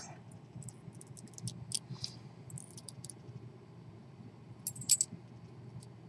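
Faint small metallic clicks and ticks from a brass padlock lock cylinder and its key being turned and handled in the fingers, scattered through the first three seconds, with a louder cluster about five seconds in.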